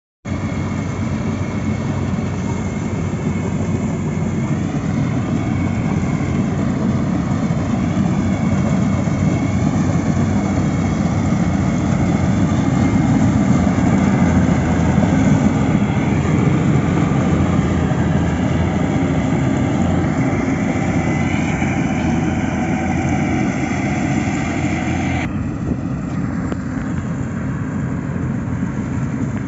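Steady, loud engine noise, heaviest in the low range, with faint wavering higher tones; about 25 seconds in, the higher part of the sound drops away suddenly.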